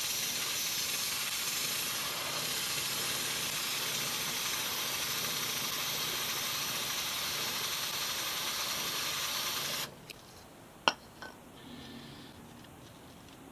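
Aerosol can of WD-40 chain cleaner spraying onto a motorcycle drive chain in one long, steady hiss that cuts off suddenly about ten seconds in. A single sharp click follows about a second later.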